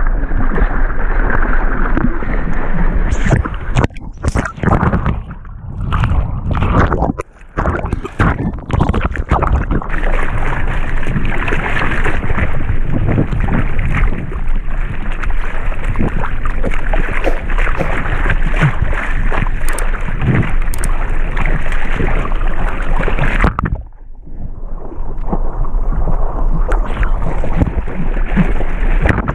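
Sea water splashing and rushing against a GoPro camera held at the surface while a surfer paddles a surfboard through choppy water. The noise drops away briefly several times a few seconds in, and again suddenly near the end.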